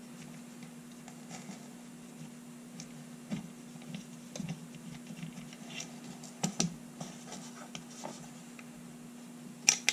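Screwdriver turning out the grip screw of an old top-break revolver: light scraping and small metal clicks of the blade in the screw slot and the wooden-and-metal grip parts being handled, over a steady low hum. A few sharper clicks, the loudest near the end.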